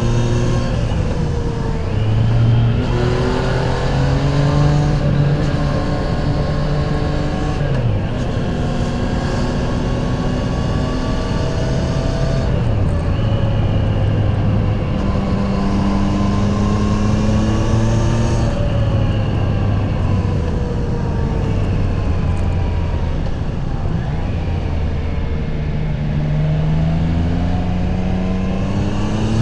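Triumph Tiger Sport 660's inline three-cylinder engine through its stock exhaust, under way on a ride: the pitch climbs and drops again and again as the rider accelerates, changes gear and rolls off, with a last climb near the end.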